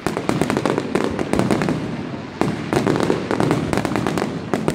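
Fireworks display: aerial shells bursting in a dense run of sharp bangs and crackles over a continuing rumble, with a fresh volley at the start and another about halfway through.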